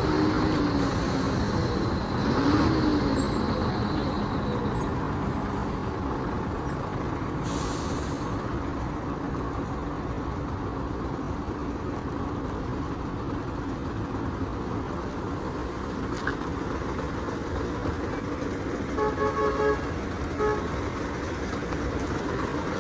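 Road traffic in slow, congested flow: a steady rumble of car and truck engines and tyres, with a car horn giving a quick run of about five short toots near the end.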